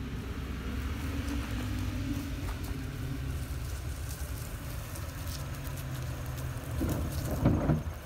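Toyota Tacoma pickup's engine running at low revs: a steady low hum under a rushing noise. A brief louder sound comes near the end.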